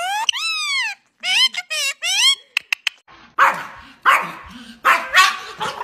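A small dog barking several times in an excited burst at a squirrel outside a glass door, starting about halfway through. Before it come a few high squeals that rise and fall in pitch.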